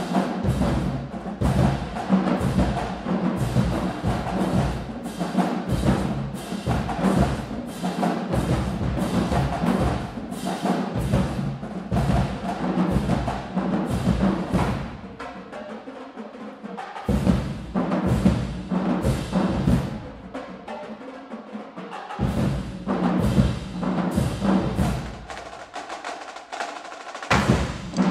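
Marching band drumline playing a cadence: a fast, steady rhythm of snare, tenor and bass drum hits, with a few short breaks in the second half.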